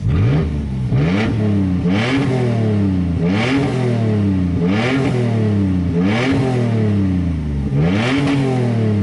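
2008 Toyota Tacoma's 4.0 L V6 revved repeatedly while standing still, seven quick throttle blips to about 5,000 rpm, each rising fast and dropping back to a lower speed, heard from inside the cab. The engine revs freely and evenly, which the seller calls running great.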